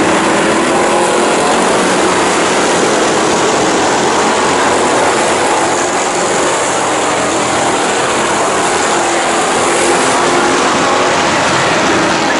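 A pack of Thunder Stock race cars running at speed on a dirt oval, many engines blending into one loud, steady sound, their pitch drifting up and down as the cars go through the turns.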